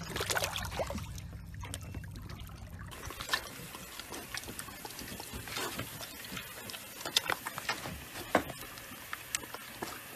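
A low steady rumble with water noise for about the first three seconds. It then gives way to water sloshing in a small paddling pool, with scattered short clicks.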